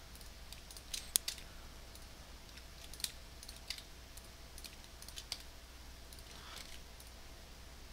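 Scattered, irregular clicks of a computer mouse and keyboard, faint, over a low steady electrical hum.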